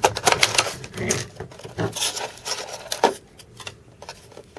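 Hands handling trading cards and their packaging: a run of quick clicks, taps and rustles, busiest in the first couple of seconds and thinning out after.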